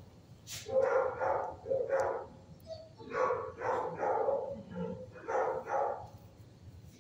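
Shelter dog barking in a kennel, in groups of two to four barks with short pauses between the groups.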